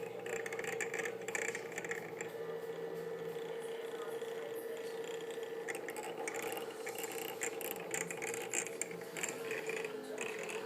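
Sumpod Basic 3D printer printing: its stepper motors whine and buzz in short, irregular runs as the print head moves, over a steady hum.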